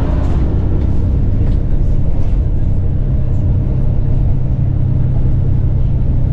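A road vehicle driving: a steady, loud low rumble of engine and road noise.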